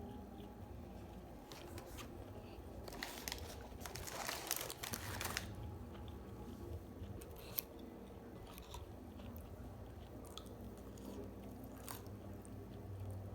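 A person biting and chewing McDonald's fast food close to the microphone. There is a burst of crunching about three to five seconds in, then scattered sharp mouth clicks.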